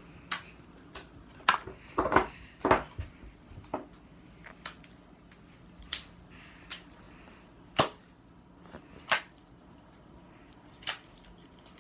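Homemade glue slime being squeezed and stretched by hand, giving a string of short, sharp wet pops and clicks at irregular intervals, about one a second.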